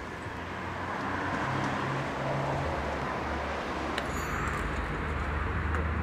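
City street traffic with a vehicle engine running steadily, a constant low drone under a haze of road noise, and a single brief click about four seconds in.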